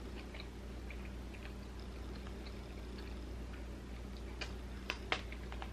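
Quiet steady room hum with a few soft clicks and smacks from eating, the clearest three near the end.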